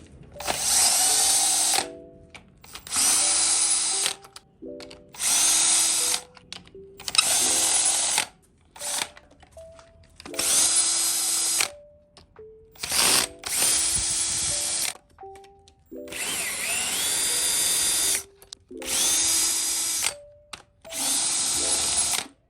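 Cordless power drill running in about nine short bursts of a second or two each, its motor whining up at the start of each run and then stopping.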